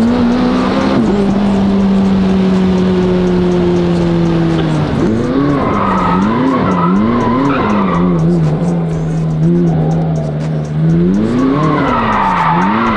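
A car's engine held at high revs while the car does donuts. Its note sags slightly, then rises and falls repeatedly from about five seconds in as the throttle is worked. The tires squeal and skid in two stretches, the second near the end.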